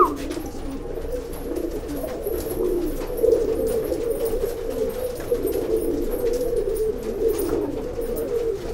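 Rakdher pigeons cooing continuously, overlapping low, wavering coos, with a brief sharper note right at the start.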